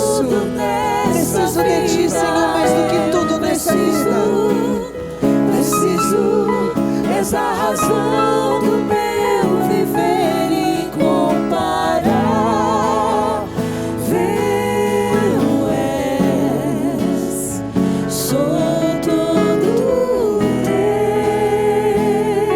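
Christian worship song: a voice sings long, wavering held notes over a band accompaniment.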